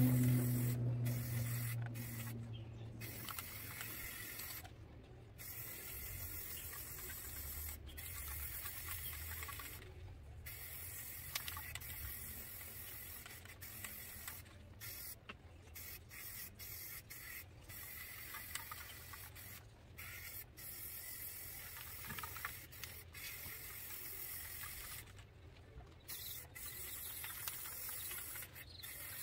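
Aerosol can of Rust-Oleum 2X Ultra Cover spray paint hissing in bursts, broken by many short pauses as the nozzle is released and pressed again.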